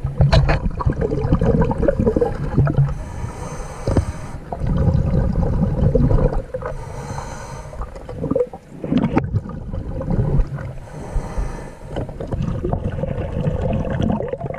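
Underwater recording of a diver breathing through a scuba regulator: bubbly, rumbling exhalation bursts recur every few seconds, with a few sharp knocks and clicks from handling.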